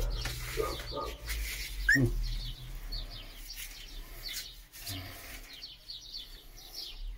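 A litter of newborn puppies squeaking and whimpering: many short, high-pitched cries overlapping, with a louder cry about two seconds in.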